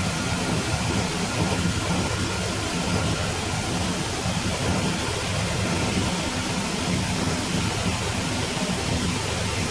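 Gleaner S98 combine harvester running steadily: a constant engine drone under a broad rushing noise.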